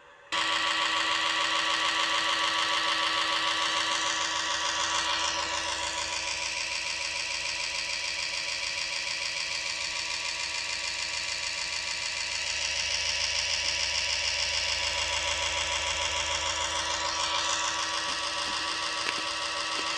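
Synthetic engine sound from a homemade optical non-contact engine-sound generator imitating a Subaru EJ20 flat-four with equal-length exhaust, played through a vibration actuator. It starts abruptly and runs at fairly steady revs, with a mechanical whirr and a noisy hiss mixed in.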